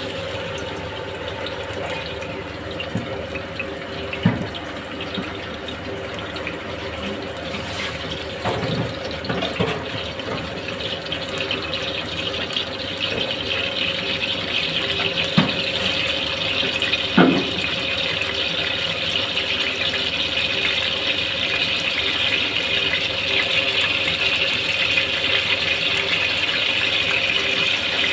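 Ginger-garlic paste frying in a large pot of hot oil: a steady sizzle that grows louder about halfway through, with a few knocks of a utensil against the pot.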